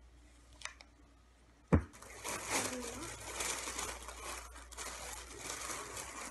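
A sharp knock a little under two seconds in, then continuous crinkling and rustling as a patterned bag is handled and felt by hands.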